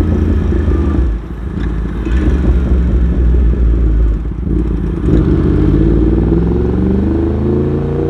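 Yamaha YZF-R1M's CP4 crossplane inline-four engine running as the bike is ridden. The revs dip briefly about a second in and again around four seconds in, then climb steadily in pitch over the last three seconds as it accelerates.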